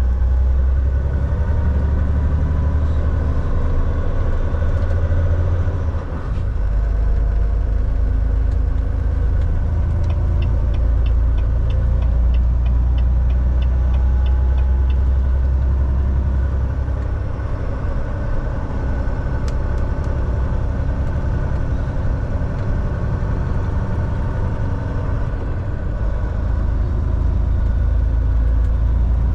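Semi truck engine and road noise heard from inside the cab, a steady low drone. A fast, even ticking runs for about five seconds midway through.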